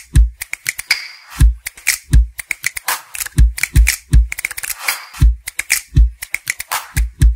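Intro music built on a punchy drum-machine beat: deep kick drums and sharp snare and hi-hat hits in a steady rhythm.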